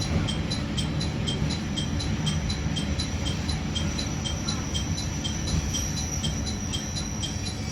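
A Japanese ATS-Sx warning-continuation chime in a train cab: a two-note electronic chime alternating quickly and repeating steadily, about four notes a second. It is the sound that keeps going after the driver has acknowledged a warning, while the train approaches a restrictive signal. The train's running rumble lies under it.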